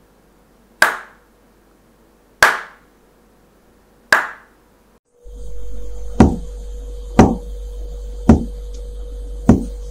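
Single hand claps, one at a time: three about a second and a half apart, then after a cut four more about a second apart over a steady low hum and hiss. The claps are picked up by the Arduino board's built-in microphone, each one switching its LED on or off.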